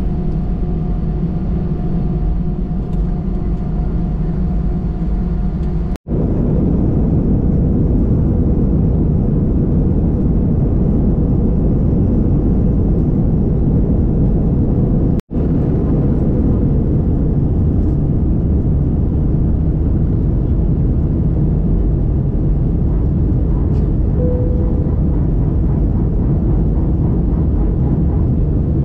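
Jet airliner engines and airflow heard from inside the cabin during takeoff. First a steady hum with faint whining tones while taxiing, then a louder, fuller rumble through the takeoff roll and climb-out, broken by two split-second dropouts.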